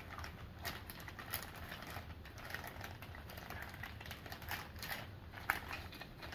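Clear plastic bag holding plastic model-kit sprues crinkling and rustling in short, irregular crackles as hands pull it open.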